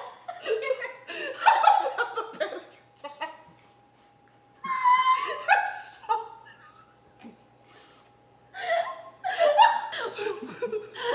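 People laughing in several bursts, with quiet gaps between them.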